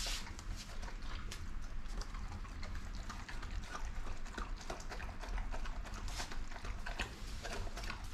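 A golden retriever eating spaghetti with tomato and beef sauce from a stainless-steel bowl on a tile floor. Steady, irregular clicks and smacks of its mouth and the bowl as it gulps the food down fast.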